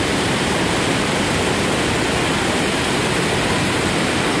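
Small waterfalls spilling over rock ledges into a river: a steady rush of falling water.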